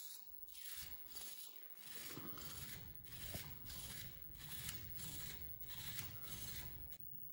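Faint whirring of the PiDog robot's small metal-gear servo motors as it tilts its head from side to side, coming in soft repeated pulses about every half second.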